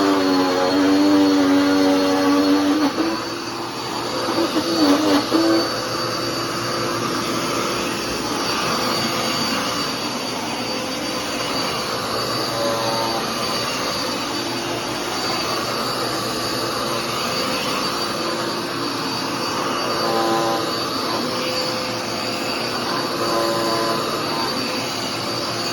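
Dirt Devil PowerMax Pet upright vacuum cleaner running steadily while vacuuming, with a constant high whine. A lower hum wavers in pitch over the first few seconds and comes back briefly a few times later.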